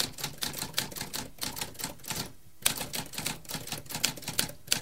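Typewriter keys clacking in a quick, irregular run of several strikes a second, with a brief pause about halfway through and a sharper strike just after it.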